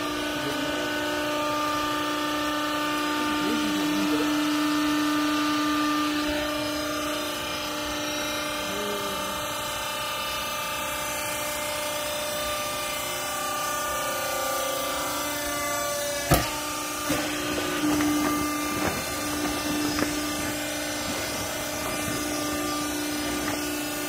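Hydraulic vertical clothes baler's pump motor running with a steady hum. A single sharp knock comes about two-thirds of the way through, followed by a few lighter knocks.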